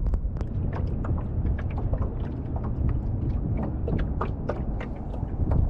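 Wind buffeting the microphone as a steady low rumble, with irregular light clicks and knocks over it, several a second.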